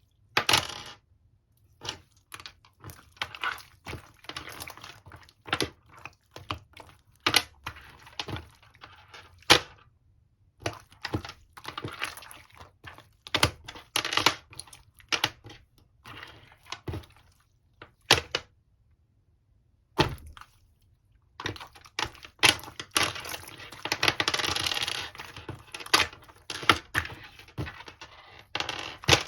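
Slime being squeezed and pressed by hand, giving a dense, irregular run of sharp clicks and crackling pops from trapped air, with a couple of brief pauses.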